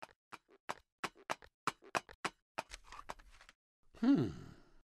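A run of short, light clicks or taps, about two to three a second. About four seconds in, a louder short vocal sound glides down in pitch.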